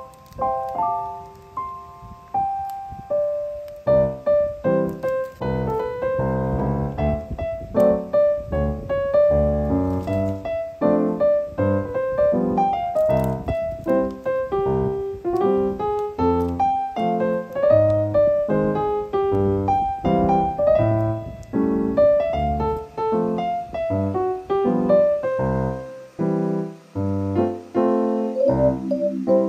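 Background piano music: a flowing melody of single notes over chords and bass notes.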